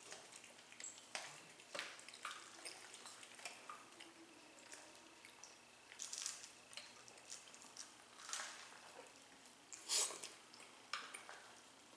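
Faint eating sounds of roast chicken being chewed: scattered wet smacks and small clicks, with a sharper, louder one about ten seconds in.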